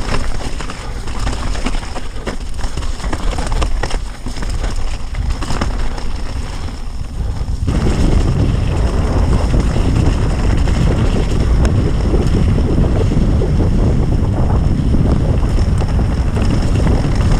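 Wind buffeting the microphone of a mountain bike rider's camera, mixed with the rattle of the bike over rough trail. The wind noise gets suddenly louder and heavier about eight seconds in and stays so.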